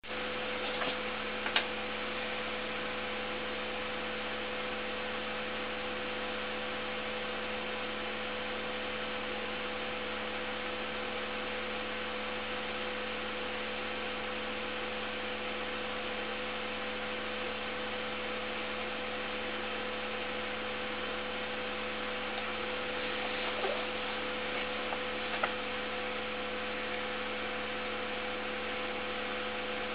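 Steady electrical hum made of two held tones over a constant hiss, with a few faint clicks, one pair about a second in and a couple more near the end.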